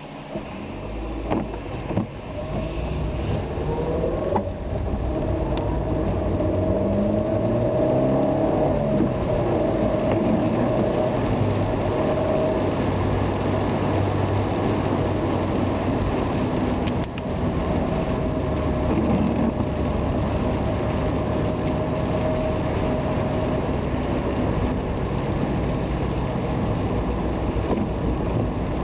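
A car driving. The engine rises in pitch as it pulls away and speeds up over the first few seconds, then runs steadily with road noise.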